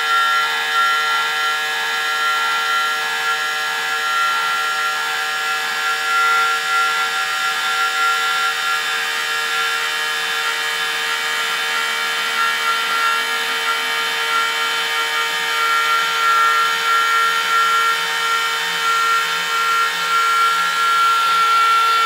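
Motor and gears of an RC Tamiya King Hauler dump truck's hoist whining steadily as the half-round dump box lowers. The whine cuts off suddenly as the box comes fully down.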